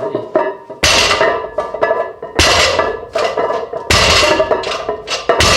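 Loaded barbell with iron plates set down on the floor four times, about a second and a half apart, as in a set of deadlift reps. Each landing is a loud clang with the plates ringing briefly after it.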